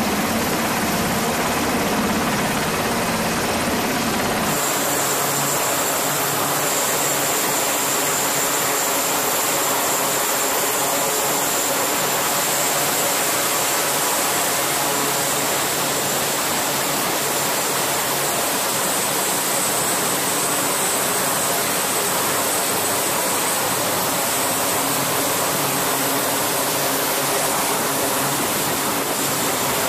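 A Navy Seahawk helicopter's rotor and turbine running for about the first four seconds, then a sudden change to a C-2A Greyhound's twin turboprop engines running, a steady noise with a high whine.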